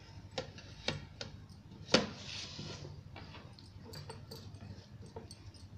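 Scattered light clicks and taps as hands spread gram-flour batter over a colocasia leaf on a steel plate, the glass bangles on the wrists clinking. One sharper click about two seconds in is followed by a short hiss.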